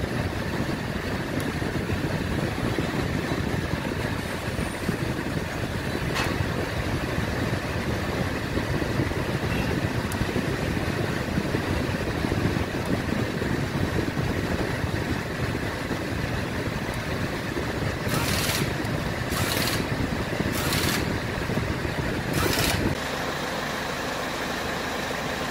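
Car A/C blower fan pushing air out of a dashboard vent with the engine idling, a steady rush of air. Four short hissing bursts come toward the end, and after that the sound turns to a steadier hum.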